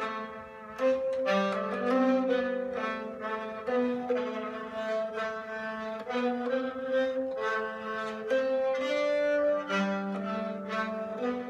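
Harp played slowly: single plucked notes and pairs, each ringing on and overlapping the next, in the low-to-middle range.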